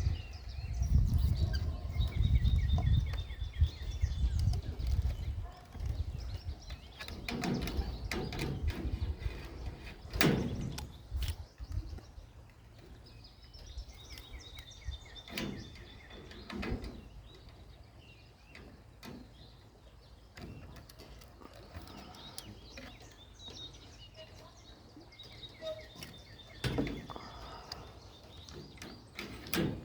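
Several short, sharp sneezing blasts from something in the woods, spaced several seconds apart, which the uploader takes for a deer's warning sneeze. Birds chirp and trill in the background, with a low rumble in the first few seconds.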